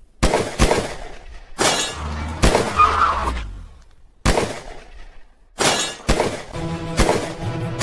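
A string of gunshots, about eight sharp bangs at irregular spacing, each with a short ringing tail, over background music.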